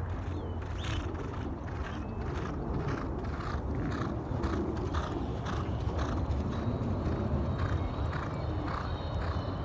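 Hoofbeats of four two-year-old racehorses galloping past on a dirt track: a quick, even drumming of thuds, over a steady low rumble.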